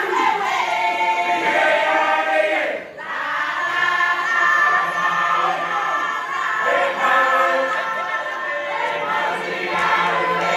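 A large group of men and women singing together as a choir, with a brief break in the singing about three seconds in.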